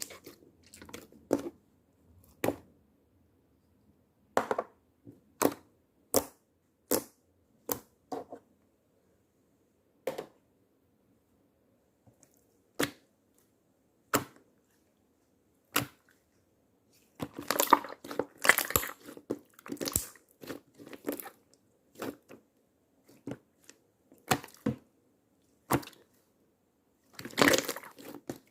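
Slime being squeezed and worked by hand, giving scattered sharp pops and clicks, with denser runs of crackling about two-thirds of the way through and again near the end.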